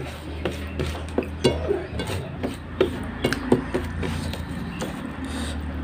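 Fingers mixing rice and curry on a steel plate, with wet squishing and a scatter of sharp clicks and taps as the hand scrapes the metal, over a steady low hum.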